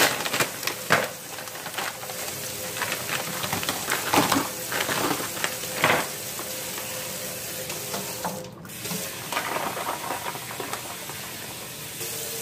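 Plastic bag of frozen jumbo shrimp crinkling and rustling as it is handled and opened, with several sharp crackles through the first six seconds. After that comes a steady, quieter hiss.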